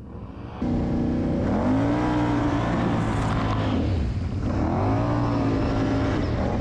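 Quad (ATV) engine revving up and easing back twice, starting abruptly about half a second in.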